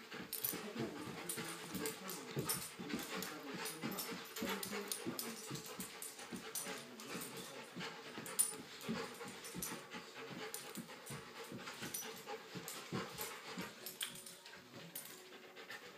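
Old English Sheepdog panting and whining in quick, irregular bursts while spinning after its tail, with many quick scuffs mixed in.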